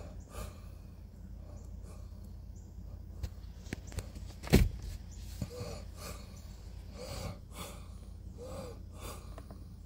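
Handling sounds from a handheld scan tool: light clicks of its buttons being pressed, with one sharper knock about halfway through, over a steady low hum inside a car. A few faint vocal murmurs come in the second half.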